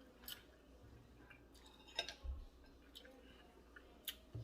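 A few faint, sharp clicks, about five, scattered over a few seconds against quiet room tone.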